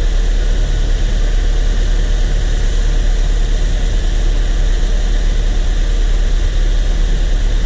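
1997 Saturn SL2's 1.9-litre four-cylinder engine idling steadily with its AC compressor engaged, heard close at the engine bay with a loud low rumble.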